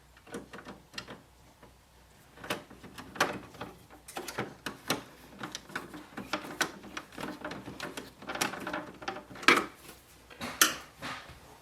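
Irregular light clicks, taps and knocks of hands working on a printer's plastic housing while a screw is refitted, with a few louder knocks spread through.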